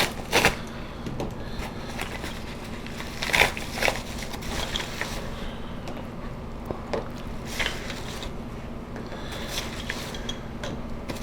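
Unpacking a parcel by hand: crinkling packaging and small plastic clicks and knocks as filmstrip canisters are handled, with the sharpest clicks at the start and about three and a half seconds in. A faint steady hum runs underneath.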